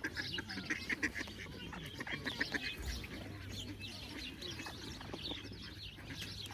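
A flock of waterfowl calling together: many short calls overlapping one another, most crowded in the first two and a half seconds.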